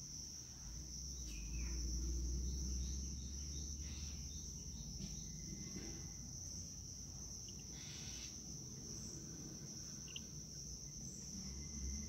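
A steady, high-pitched insect drone, with a few faint, short bird chirps. A low rumble is heard during the first few seconds.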